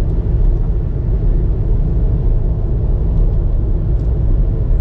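Steady low rumble of a moving car, road and engine noise while driving downhill.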